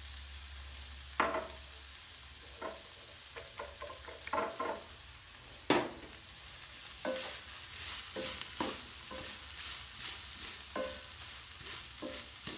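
Meat and vegetables frying in a pan with a steady sizzle, stirred with a utensil that scrapes and knocks against the pan. There are two sharper knocks, one about a second in and one near the middle, and more frequent scraping strokes in the second half.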